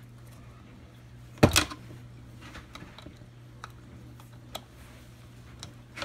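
Ratchet wrench and socket working a 10 mm retainer nut on a motorcycle engine case: one sharp clank about a second and a half in, then a few scattered light ratchet clicks. A steady low hum runs underneath.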